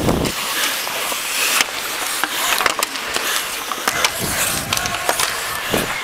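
Ice skate blades scraping and carving on the rink in a steady hiss, with many sharp clacks of hockey sticks on the ice and puck, heard close up on a helmet-mounted camera.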